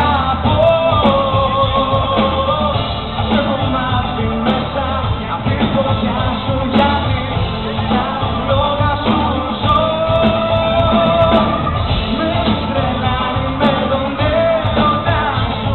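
Live concert music: a band playing a song with singing over it, including long held sung notes.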